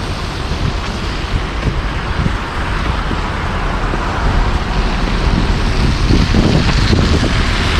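Steady city street traffic noise, with wind rumbling on the microphone; it grows slightly louder near the end.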